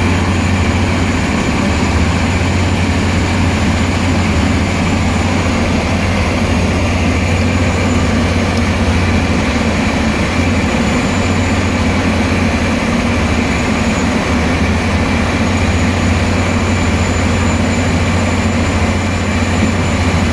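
Railway track renewal train's heavy machinery and diesel engines running steadily: a loud, even low hum with a wash of mechanical noise over it.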